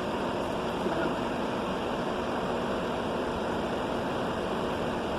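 Steady rushing noise from a running machine, holding even throughout.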